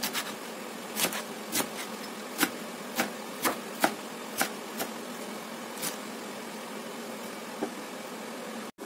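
A chef's knife chopping sorrel leaves on a wooden cutting board: sharp, irregular taps of the blade hitting the board, about ten in the first six seconds, then one more near the end.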